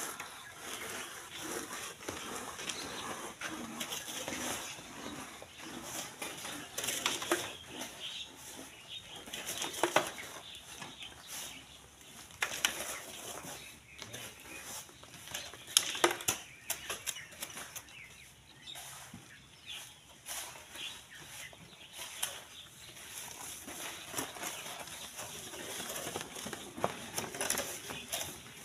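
Sand and gravel being scraped and dug by hand, an irregular gritty crunching and rustling with a few sharp knocks of stone or tool.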